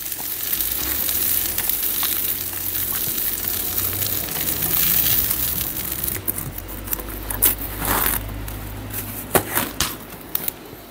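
Hot oil sizzling in a frying pan as seared prawns and scampi are lifted out. The sizzle dies down about six seconds in, and a few short clicks and knocks follow.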